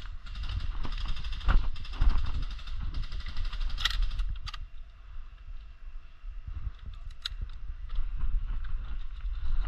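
Rustling of clothing and gear brushing against a camouflage net and undergrowth, busiest in the first few seconds, with a few sharp clicks near the middle and again later.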